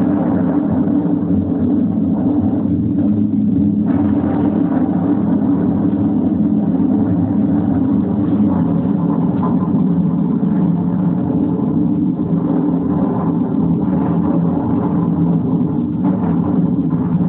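Piston aircraft engines droning steadily and loudly, without a break, in a sound-effects re-creation of the 1940 air raid.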